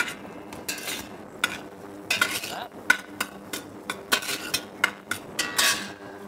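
A metal spoon stirring sliced mushrooms in butter and oil in a large stainless steel stockpot, scraping and clinking against the pot at irregular moments.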